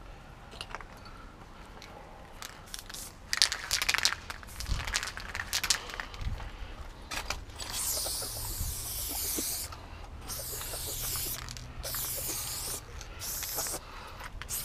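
Aerosol spray-paint can hissing in a series of bursts of about a second each, starting about halfway through, as lines of white paint are sprayed onto a brick wall. Before that, a few seconds of rattling clicks.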